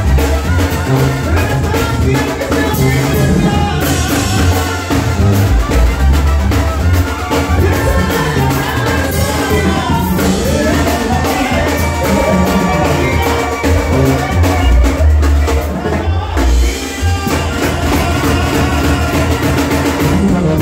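Live Mexican banda music: a brass band with a sousaphone playing the bass line over drums and percussion, played loud.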